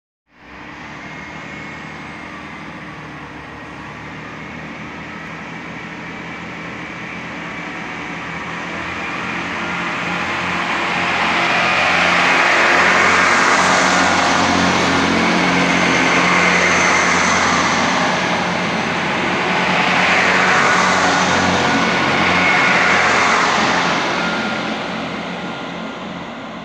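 Four-car Class 158 Express Sprinter diesel multiple unit pulling out and accelerating past, its underfloor diesel engines running under power. The engine drone grows louder over the first dozen seconds, swells and dips a few times as the cars go by, then fades as the train draws away.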